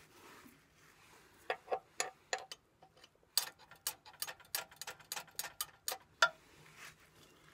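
A run of sharp metallic clicks and light taps, uneven, about three or four a second, from work on the Massey Ferguson 35's rear transmission housing. They start about a second and a half in and stop a little after six seconds, over a faint steady hum.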